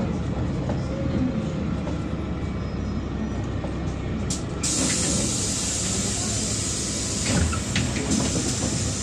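Cabin sound of a LiAZ-5292.67 city bus running on compressed natural gas, its engine rumbling steadily as it stands at a stop. About halfway through, a steady high hiss of air starts abruptly and keeps going, with a few brief knocks near the end.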